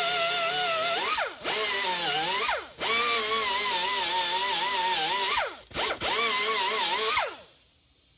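Handheld power tool motor whining at a wavering pitch. It is let off and spins down with a falling whine, then is restarted, about four times in quick succession. It stops for good a little after seven seconds in.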